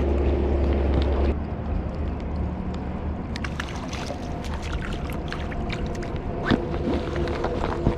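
Fast, high stream water rushing steadily, with a low rumble that eases about a second in. Scattered light clicks and small splashes follow from about three seconds in, as a small rainbow trout is brought in on a line.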